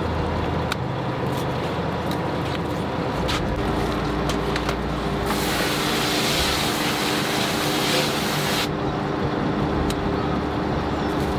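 Fishing boat's engine running steadily, with scattered clicks and knocks as net traps are handled. About five seconds in, a loud hissing rush starts suddenly and cuts off about three seconds later.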